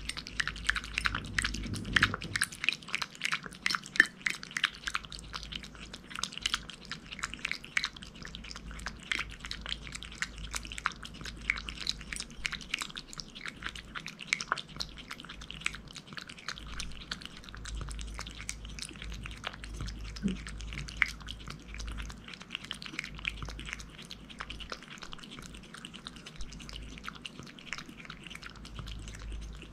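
A domestic cat lapping a liquid snack from a ceramic bowl: rapid, wet tongue clicks several times a second. The lapping is louder in the first half and softer later as the bowl empties.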